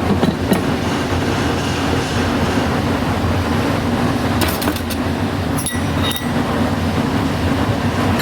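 Steady low machine hum and rumble of the workshop, with a few light metallic clinks of transmission parts being handled in the middle, two of them ringing briefly.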